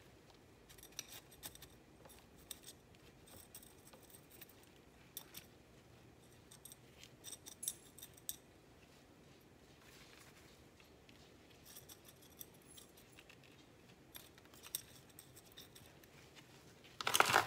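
Faint scraping and clicking of a metal potting chopstick poking into gritty pumice mix and against a ceramic pot, in scattered spells of small taps, with a louder rustle near the end.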